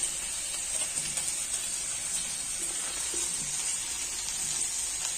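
Vegetable curry sizzling in a pan: a steady frying hiss.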